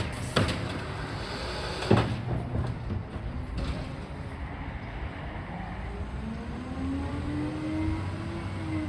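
Garbage truck at work: two sharp knocks in the first two seconds, then its engine revs up, rising steadily in pitch, and eases off near the end.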